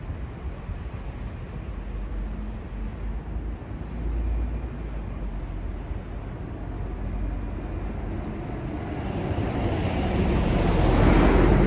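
Low, steady city traffic rumble, with a vehicle approaching and passing close near the end, swelling to its loudest about eleven seconds in.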